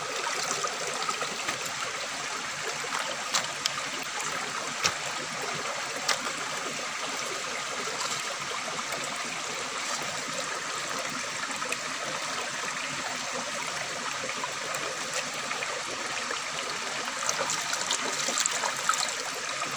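Steady rush of flowing river water, with a few small clicks now and then.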